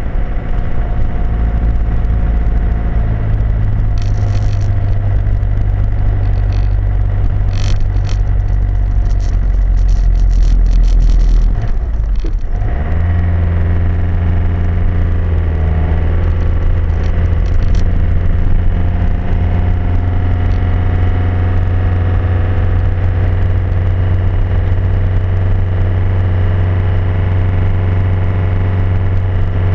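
Hymer 564 motorhome driving, its engine and tyre noise heard from inside the cab: a steady low drone with rattles and clicks in the first half, a brief break in the engine sound about twelve seconds in, after which it picks up again at a different pitch and runs on steadily.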